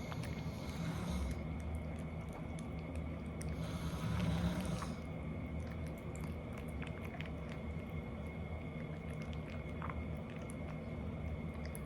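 A sleeping woman snoring: two breathy snores with a low buzz, one about a second in and a louder one around four seconds in.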